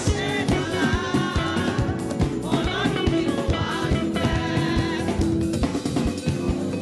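Live gospel band music: a hollow-body electric guitar and a drum kit, with women singing lead into microphones. The singing drops out near the end while the band plays on.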